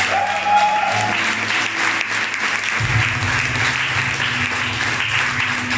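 Audience applauding, with music starting underneath about three seconds in.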